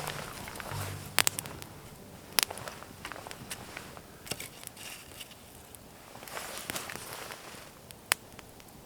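Rustling and handling sounds with a few sharp clicks or snaps: one a little over a second in, one near two and a half seconds, and one near the end.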